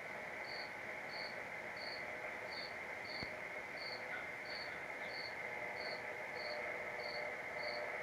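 A short high chirp repeating at an even pace, about three every two seconds, over a steady hiss and a faint hum.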